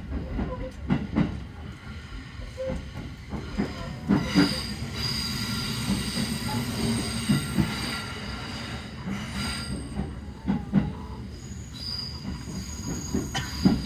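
Inside a JR Central local electric train's carriage: the train running on the rails with a steady low rumble and irregular sharp knocks of the wheels. A thin, steady high tone runs through the middle stretch.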